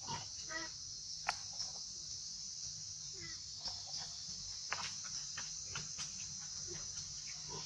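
Steady high-pitched drone of a chorus of insects, with a few short squeaks and clicks over it.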